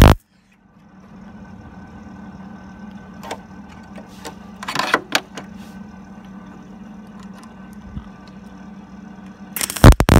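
MIG welder laying short welds on steel: a brief burst of arc crackle at the start, then a steady low hum with a few clicks, and loud crackling welding again near the end.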